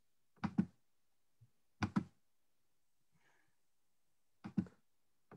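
A computer mouse clicked three times in short double clicks, about two seconds apart, in an otherwise quiet room.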